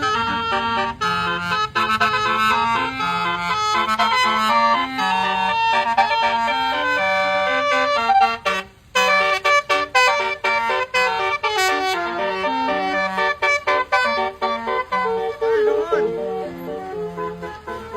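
A bus's basuri (telolet) musical horn playing a quick tune, note after note in short steps, with a brief break about halfway through.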